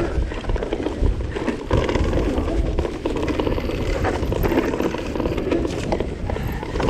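Vitus mountain bike riding fast over a rough trail: tyre noise with a steady stream of rattles and knocks from the bike, and a rumble under it.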